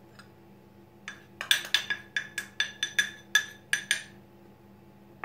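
Metal spoon tapped rapidly against a glass bowl: a run of about a dozen ringing clinks, starting about a second in and lasting some three seconds, as the last cornstarch is knocked off the spoon.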